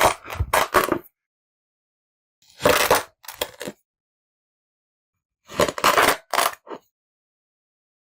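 Kinetic sand being worked by hand or tool, with three short bursts of gritty crunching and scraping, each about a second long and separated by silence.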